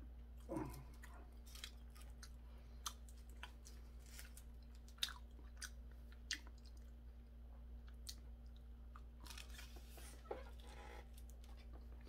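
Faint, scattered crisp crackles and clicks of dried seaweed (gim) being pressed around a triangle kimbap, then bitten and chewed, over a low steady hum.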